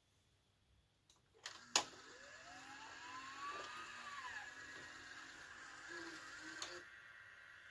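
JVC HR-D160EG VHS video cassette recorder powering up with its cover off: two sharp clicks about a second and a half in, then its motors whirring faintly, one whine rising in pitch and falling again as the mechanism spins, with another click near the end.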